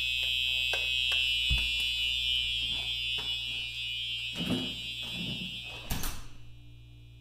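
Simplex TrueAlert fire alarm horn sounding one continuous steady tone, run on 12 volts, so quieter than its normal output. It grows slowly fainter, with a few thumps. About six seconds in a door knocks shut and the horn drops to a faint, muffled trace.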